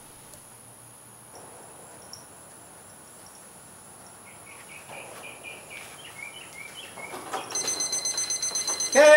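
Digital probe thermometer alarm beeping rapidly, starting about seven and a half seconds in: the meat's internal temperature has reached the 195°F set point. Before it, birds chirp faintly.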